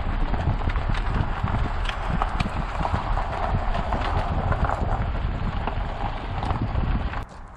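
Footsteps crunching on a gravel track, a steady run of small crunches that stops suddenly near the end.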